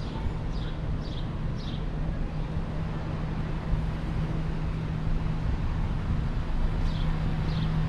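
Town-street ambience: a steady low rumble of traffic with a constant low hum, and a few faint high chirps about a second in and again near the end.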